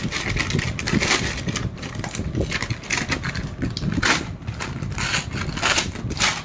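Packaging being handled: irregular rustling, crinkling and knocks over a steady low rumble.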